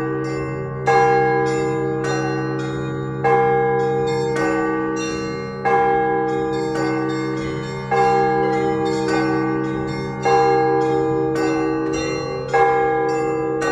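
Russian Orthodox church bells rung together: a heavy bell struck about every two and a half seconds, with smaller bells chiming in a quick, steady pattern between its strokes, all over the long hum of the large bells.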